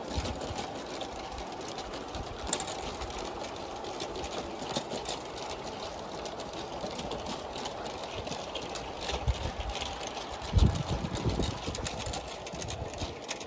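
G-scale model freight trucks rolling past on garden railway track: a steady running rumble with irregular wheel clicks over the rail joints, and a louder low thump about ten and a half seconds in.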